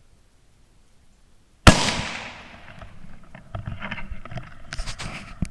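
A single .17 HM2 rifle shot about two seconds in, sharp and loud, its report dying away over about a second, followed by a few light clicks and rustling.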